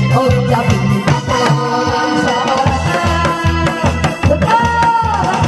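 Upbeat Korean trot medley music: a steady, evenly spaced drum beat under a sustained melody line.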